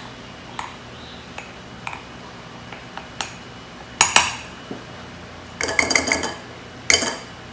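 Copper measuring cup clinking against a glass flour jar and its lid while cake flour is scooped out. A sharp clink comes about four seconds in, then a quick run of ringing metallic taps as the cup is knocked on the rim of a wire-mesh sieve to empty it, and one more clink near the end.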